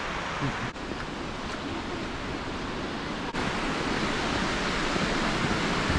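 Steady rush of a mountain river running over rocks in a snowy gorge, with two brief dips in the noise.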